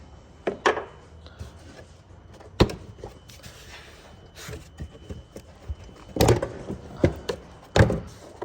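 A few scattered sharp knocks and clunks of objects being handled, over a faint steady room hum: one knock about two and a half seconds in and several more close together near the end.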